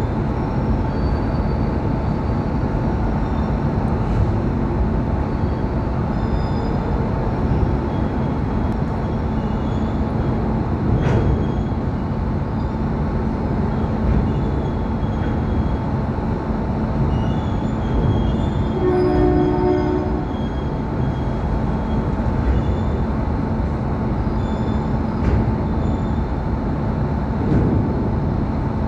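A standing electric locomotive with its pantograph raised, giving a steady loud drone with a constant hum. About two-thirds of the way through, a train horn gives one short toot of about a second.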